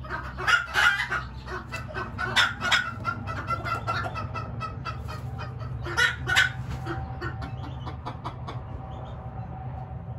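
Young pheasant × chicken hybrid calling in quick runs of short, sharp clucks and chirps, busiest in the first few seconds and again around six seconds in, then dying away after about eight seconds.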